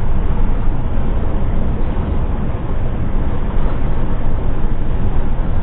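Steady road noise inside a car cruising at highway speed: low tyre rumble and wind, heaviest in the low end, picked up by the dashcam's microphone.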